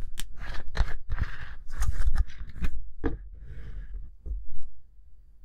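Plastic drink bottle crackling in the hands as its screw cap is twisted off: a run of crisp clicks and crinkles that dies away near the end.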